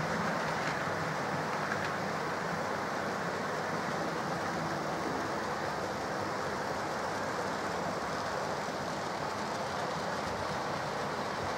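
OO gauge model trains running on the layout's track: a steady whirr of small motors and wheels rolling on the rails.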